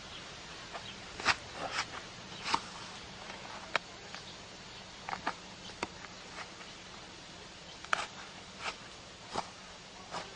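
Hand-sewing a black fur hat with needle and white thread: about a dozen short, irregular rustles and sharp ticks as the thread is drawn through the fur.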